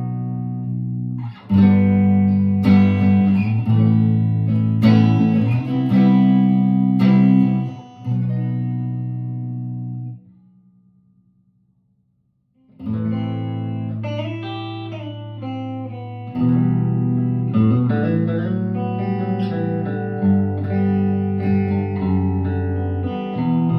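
1958 Guild Aristocrat electric guitar being played: a series of struck chords, each left to ring, fading away to a brief silence a little before the middle. The guitar then comes back with a busier passage of picked notes and chords.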